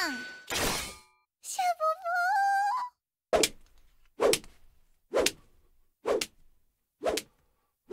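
A short wavering pitched tone, then a long jump rope slapping the ground at a steady pace, about one slap a second.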